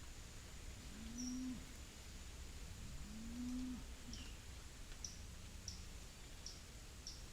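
A bird gives short high chirps, more regularly about once a second in the second half. In the first half come two short, low calls that rise then fall, over a faint steady high-pitched drone.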